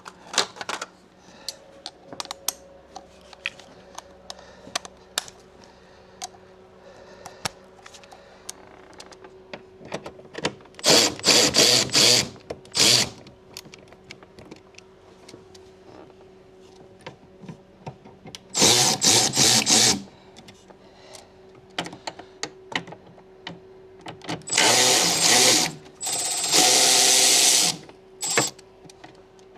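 A cordless power tool spinning out the 10 mm air box bolts in three runs of a few seconds each, about ten, nineteen and twenty-five seconds in. Sharp clicks and clinks of tools being handled come between the runs.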